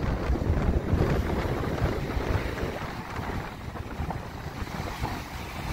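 Strong wind buffeting the microphone over small waves breaking and washing up a sandy bay beach. The gusts are heavier in the first half and ease after about three seconds.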